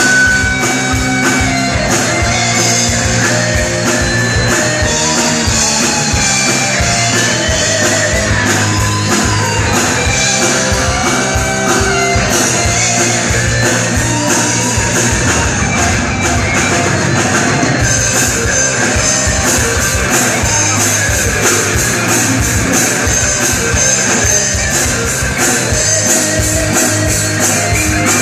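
Live hard rock band playing: distorted electric guitars, bass and drum kit keeping a steady beat, with a singer's voice over it.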